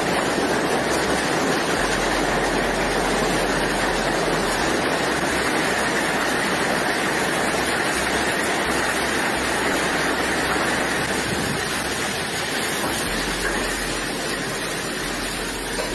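Heavy hail falling: a dense, steady clatter of countless hailstones striking the ground, paving and roof. It eases slightly near the end.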